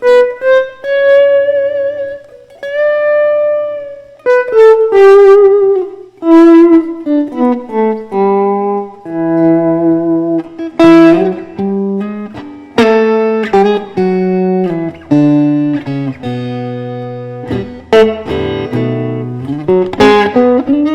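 Electric guitar (a Fender Stratocaster) playing a solo blues in E: single-note phrases with long held notes bent and shaken with vibrato, then busier lines with bass notes picked under the melody.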